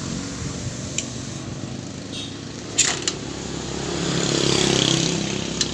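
Engine of an odong-odong ride vehicle running steadily, its sound swelling louder about four seconds in and easing off again. A couple of short sharp clicks come around three seconds in.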